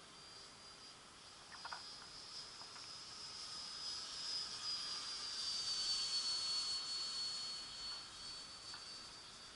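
Small radio-controlled model aircraft flying overhead, its motor making a thin high-pitched whine that grows louder and then drops in pitch about six seconds in as it passes by.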